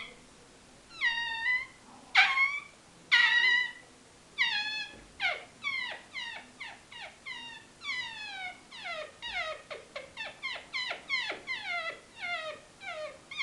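A man's voice imitating a newborn puppy: high-pitched whimpering yelps, each falling in pitch. A few spaced calls come first, then from about four seconds in a quicker run of short yelps, two or three a second.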